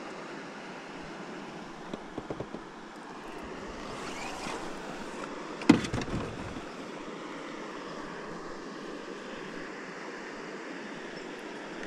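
Small waves lapping, with wind noise on the microphone. A few faint clicks come about two seconds in, then one sharp knock a little before the middle, followed by a few smaller knocks.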